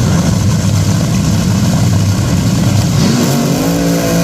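Loud drag-racing car engine running hard with a dense low rumble, settling into a steady pitched engine note about three seconds in.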